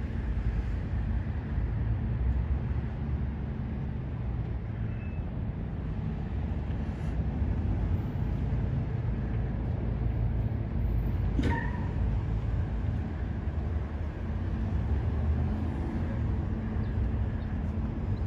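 Steady low rumble of a motor vehicle with a constant hum, and one short sharp click a little past the middle.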